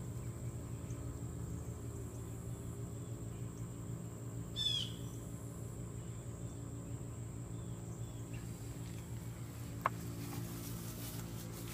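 Outdoor background of a steady low hum and a faint, steady, high-pitched tone. A brief falling bird chirp comes about halfway through, and a single sharp click comes near the end.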